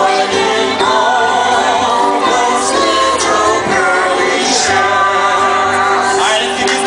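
Hula dance song playing, with a voice singing over musical accompaniment.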